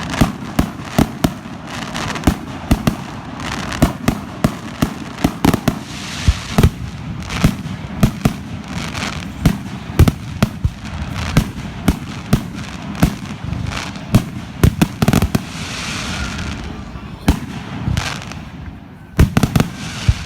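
Fireworks display: aerial shells bursting with many sharp bangs in quick, irregular succession, several a second at times, over a steady background rumble and hiss. There is a brief lull just before a closely spaced volley near the end.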